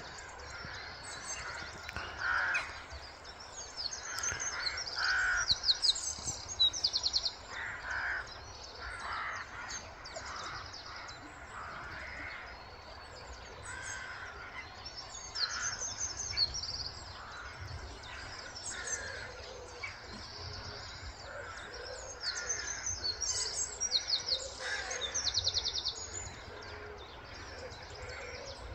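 Birds calling at dawn: crows cawing again and again, with songbirds chirping and trilling high above them. The rapid high trills come in two busier spells, a few seconds in and again near the end.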